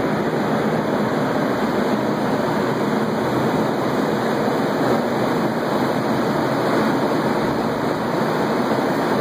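Steady, loud rushing of air from the heaters and fans of a bed bug heat treatment blowing hot air through the room.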